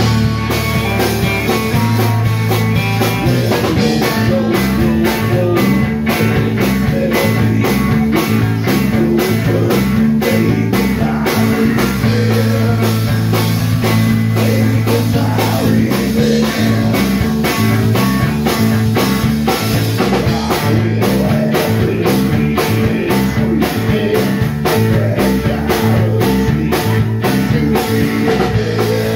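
Live rock band playing loud and steady: electric guitar and banjo over bass guitar and a drum kit keeping an even beat, with a singer at times.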